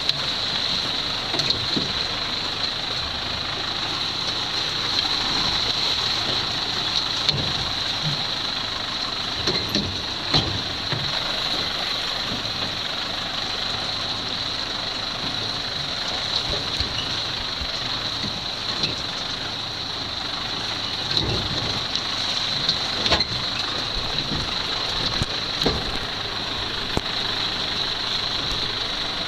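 John Deere tractor engine running steadily while the tractor drives along, with scattered knocks and rattles as it jolts over the rough track. A steady high-pitched tone sits over it.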